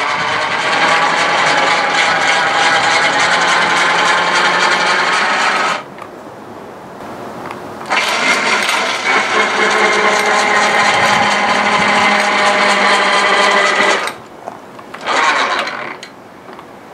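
Battery-powered electric cable winch running with a steady whine, in two runs of about six seconds with a two-second stop between, then a brief blip near the end. It is straining, which the owner blames on a battery without enough amps to pull the lift up from its lowest position.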